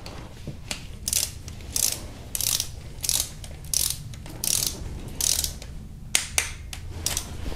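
Ratchet head of a small torque wrench clicking in short rasps about every two-thirds of a second, around ten strokes, as camshaft cap bolts are run down with a socket and extension.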